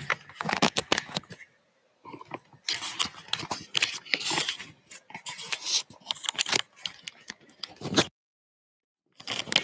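Close scraping, rustling and clicking handling noise as a camera is adjusted by hand. It stops abruptly about eight seconds in, and a short burst comes near the end.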